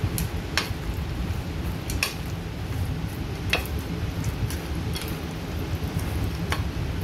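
Chopsticks clicking against a stainless steel bowl while mixing chicken in its marinade, with sharp, irregular clicks about once a second or two. A steady low rumble runs underneath.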